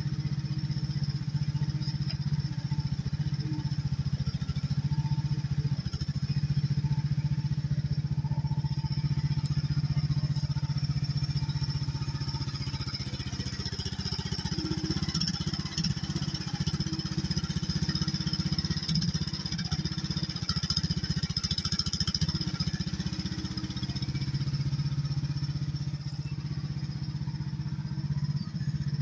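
HT10 mini excavator's small engine running continuously while it digs, with a steady high whine over it. From about twelve to twenty-three seconds in, the engine's steady note turns rough and uneven as the arm swings a bucket of dirt, then settles again.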